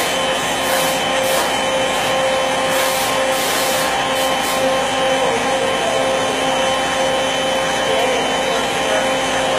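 CNC router cutting wood: a steady spindle whine over a loud rushing noise, with several short, harsher bursts during the first half.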